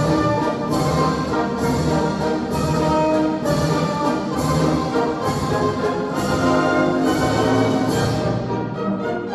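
Orchestral classical music with brass instruments prominent, played from a vinyl record on a Zorin TP-S0 turntable through a pair of bookshelf speakers.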